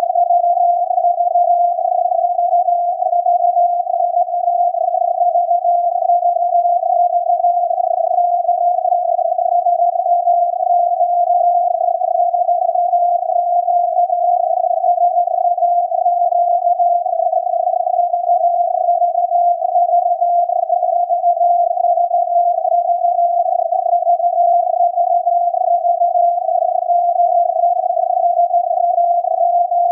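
SAQ, the Alexanderson alternator very-low-frequency transmitter on 17.2 kHz, received by an SDR receiver and heard as a Morse tone near 700 Hz. The tone sits inside a narrow band of filtered hiss and is sending the automated punched-tape 'VVV DE SAQ' test.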